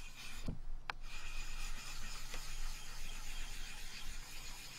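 A small nagura stone is scrubbed back and forth on a wet 6000-grit Japanese water stone: a steady gritty rubbing that works up an abrasive slurry on the stone for polishing a knife edge. About a second in there is a brief break and a sharp click.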